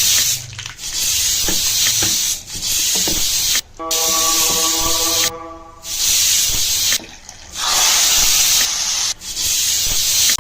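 Loud hissing from cooking, in several stretches broken by short drops, with a few clicks and a brief several-pitched tone about four seconds in.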